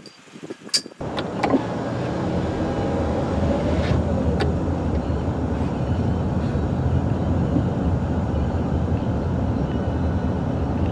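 A few sharp clicks, then, about a second in, a sudden switch to a steady rumble of road and engine noise heard from inside a moving car.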